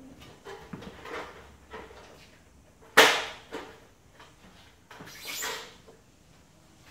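A stepladder being moved and set down: one sharp knock about three seconds in, with several lighter knocks around it and a short scrape near the end as it is climbed again.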